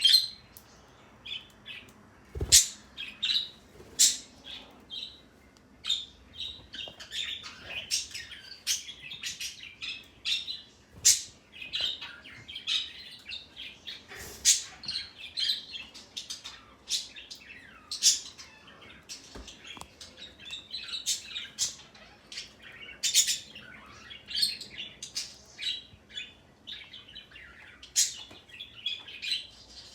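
Pet parrot giving a long, unbroken run of short, sharp chirps and squawks, irregular and often several a second.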